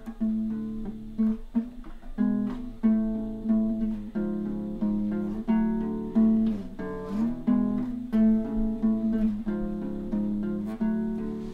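Solo acoustic guitar playing an instrumental passage: plucked notes and chords ringing out one after another in a steady rhythm.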